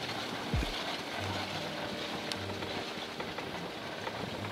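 Renault Duster driving slowly across rough, grassy ground: a low, uneven engine hum under a steady rushing noise. A short downward-sliding tone sounds about half a second in.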